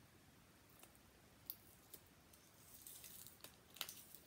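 Faint crackling and ticking of very sticky resist tape being peeled off an etched metal piece: a few separate ticks in the first two seconds, then a quicker run of crackles and ticks near the end.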